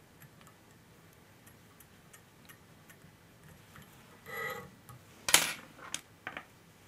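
Faint ticks and small clicks of fly-tying tools and thread as a whip finish is made at the fly's head. A brief squeak comes about four seconds in, then one sharp click, followed by a few lighter ones.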